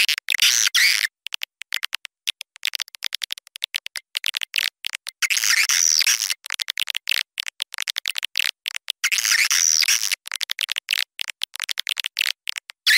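Swiftlet calls played as a nest-house lure: rapid dry clicking throughout, with three bursts of high chattering twitters, about a second in, around five to seven seconds in and around nine to ten seconds in.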